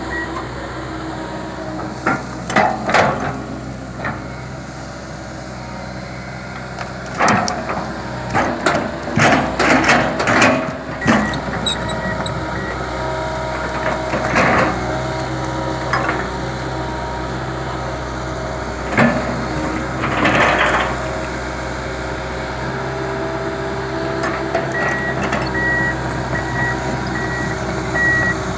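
Komatsu PC200LC tracked excavator's diesel engine running steadily under work, with clusters of sharp knocks and clanks from the machine working stumps and wood. A regular high beeping, the excavator's travel alarm, starts near the end.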